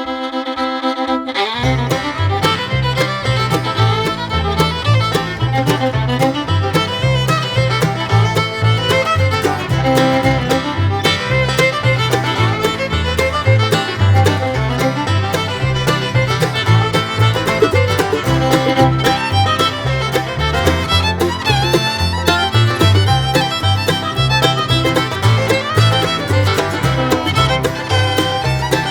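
Instrumental background music: a held chord for about the first second and a half, then a busy, lively piece over a steady, repeating bass line.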